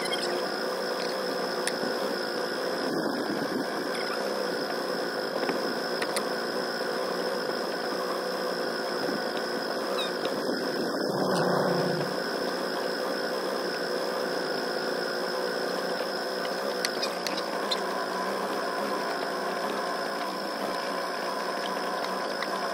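Small boat motor running steadily with a buzzing hum that sounds like a fly.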